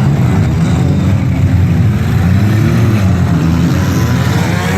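Engines of several demolition derby cars running and revving together, their pitches rising and falling over one another.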